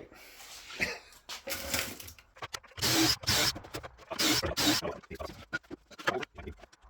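A series of irregular scraping and rustling noises, several lasting up to about a second, from materials or parts being handled at a workbench.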